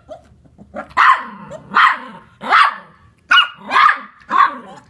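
Small terriers squabbling, one barking sharply about six times, less than a second apart, starting about a second in.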